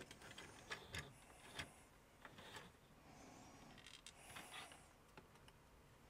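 Faint handling noise of a hard plastic G.I. Joe Swampmasher toy vehicle being turned over in the hands: a few light clicks in the first couple of seconds, then a soft rustle about four seconds in.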